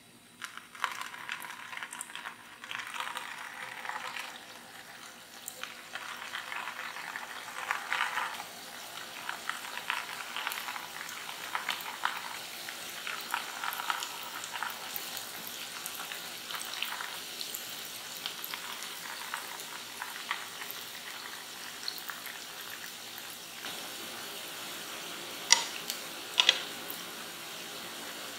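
Mashed-potato balls frying in cooking oil in a frying pan. In the first half, short bursts of sizzling come as each ball is dropped in, then a steady frying sizzle with bubbling. Near the end there are two sharp clicks from wooden chopsticks knocking against the pan.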